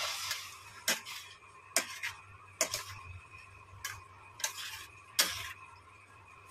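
A metal spatula stirring thick spinach paste through paneer in a stainless-steel kadhai, clinking against the pan about six times with soft scraping in between.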